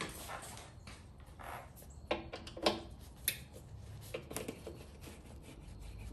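Scattered light clicks, taps and rubbing of hand tools being handled, with the sharpest clicks about two to three seconds in.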